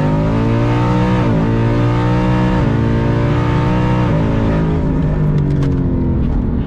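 Twin-turbocharged Ford Coyote 5.0 V8 of a 2019 Mustang GT at full throttle down a drag strip, heard from inside the cabin at about 15.5 psi of boost. The engine pitch climbs and drops back at each automatic upshift, four times, then the engine eases off over the last two seconds as the driver lifts.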